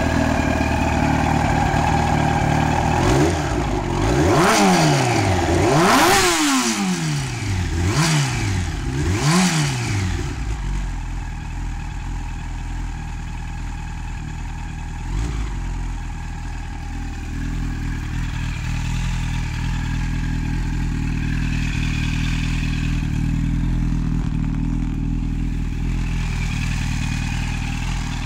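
Yamaha R1's 998 cc inline-four engine, a 2002 model with 77,000 km, ticking over at a steady idle. A few seconds in it is blipped four times in quick succession, each rev rising and falling, then it settles back to idle.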